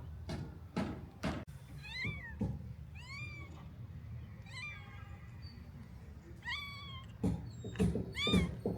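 A cat meowing over and over, about five meows a second or two apart, each rising and falling in pitch. Several short knocks come in between.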